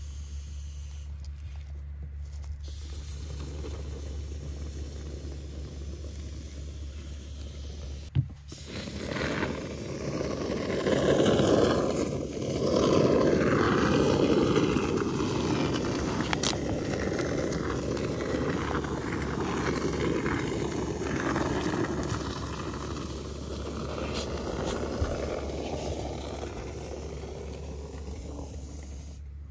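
Aerosol can of expanding urethane foam being sprayed into a gap: a rough, noisy rush that starts just after a sharp click about eight seconds in, swells, then slowly eases. A steady low hum runs underneath.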